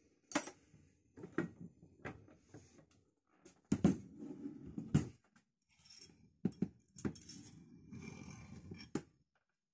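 Metal parts of a Record 74 vise knocking and clinking as they are handled and set down: a series of sharp knocks with short rattles between them.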